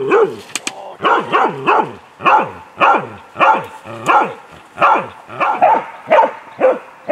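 Half-hound (halvstövare) barking at a moose through an enclosure fence: a steady series of loud barks, about two a second. It is a dog baying a moose, the stand-barking a moose dog is trained for.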